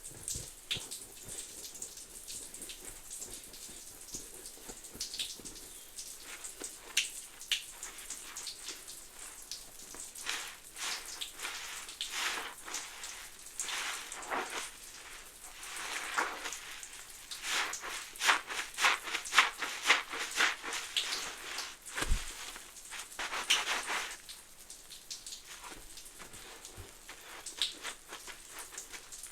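Soapy suds crackling and popping as a sponge loaded with Fabuloso citrus cleaner and Mr. Bubble bubble bath is squeezed. Sparse crackles at first, then a long stretch of dense crackling bursts in waves with each squeeze, thinning to scattered pops near the end.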